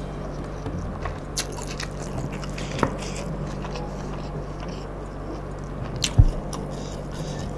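A person eating by hand close to the microphone: wet chewing and biting with soft mouth clicks, over a steady low hum. A few sharper clicks come through, the loudest with a low bump about six seconds in.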